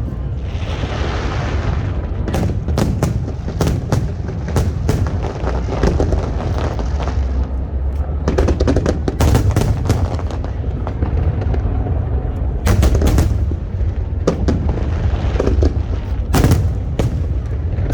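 Fireworks display: many sharp bangs and booms in quick succession over a continuous low rumble, with a hiss under the first several seconds.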